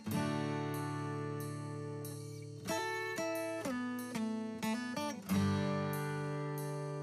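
Background music of plucked, guitar-like strings. Chords are struck at the start, about two and a half seconds in and again just past five seconds, each left to ring and fade, with quicker single notes between.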